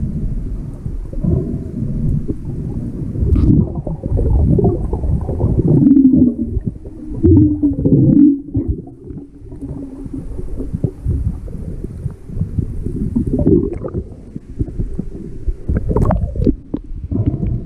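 Muffled underwater rumbling and gurgling of lake water moving around a submerged action camera, with a wavering muffled tone a few seconds in. Splashing near the end as the camera breaks the surface.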